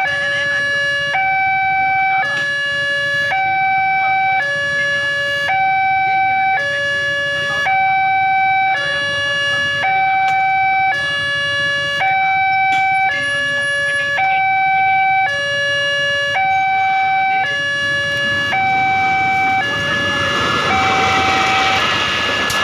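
Electronic two-tone level-crossing warning alarm, alternating steadily between a lower and a higher tone about once a second. Near the end, the rushing rumble of a passenger train passing over the crossing swells beneath it.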